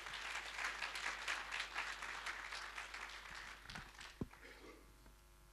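Audience applauding at the end of a talk, a dense patter of many hands that dies away over about four seconds. A single sharp knock sounds just after the clapping fades.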